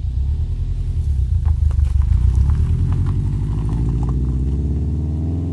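Exhaust of a 2013 Subaru WRX's turbocharged flat-four through a CNT cat-back system: a deep, loud rumble as the car pulls away, rising in pitch over the last couple of seconds as it accelerates.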